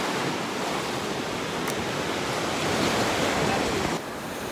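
Surf washing onto a beach, a steady rush of waves with wind on the microphone; it drops a little in level near the end.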